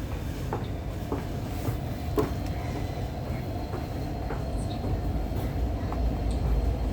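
MTR Tuen Ma Line C-Train running between stations, heard from inside the car: a steady rumble of wheels on track with scattered light clicks, and a faint high whine. The low rumble grows louder near the end.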